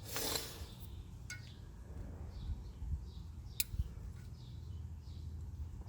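Light metallic clinks of hand tools on car parts: a short scrape at the start and a couple of sharp clicks, the sharpest a little past halfway. Faint bird chirps repeat in the background over a low steady rumble.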